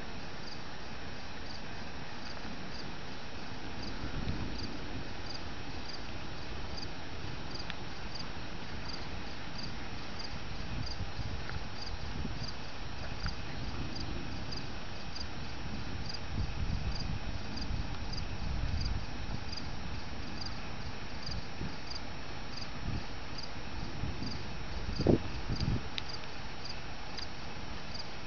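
Crickets chirping steadily in a regular rhythm, about two high chirps a second. A few low rumbles come and go, with a short low thump about 25 seconds in.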